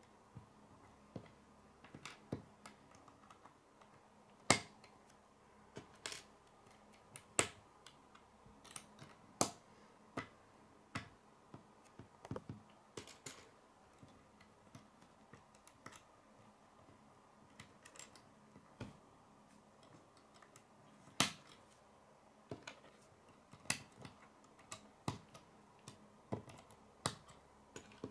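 K'nex plastic rods snapping into their connectors, with pieces clicking against each other, in irregular sharp clicks. The clicks thin out for a few seconds past the middle, and the two loudest snaps come about four seconds in and about twenty-one seconds in.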